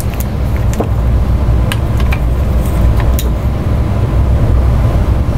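Steady low rumble of background noise, with a few light clicks and rustles in the first three seconds or so as gloved hands handle a plastic HO-scale model caboose.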